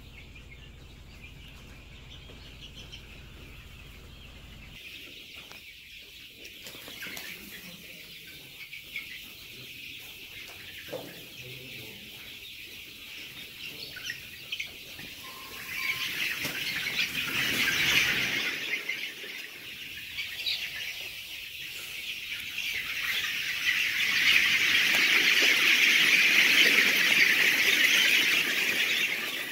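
A large flock of young Australorp and Rhode Island Red chickens peeping and clucking together in a dense, continuous chorus. It grows louder through the second half and is loudest near the end.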